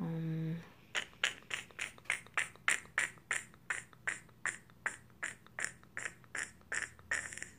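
A short hummed "mm", then a steady run of sharp clicks, about four a second, for some six seconds.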